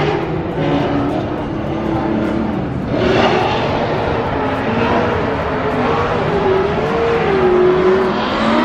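Drift car's engine revving hard as the car slides sideways around the track, its pitch wavering up and down. A broad rush of noise, typical of tyres sliding, swells from about three seconds in.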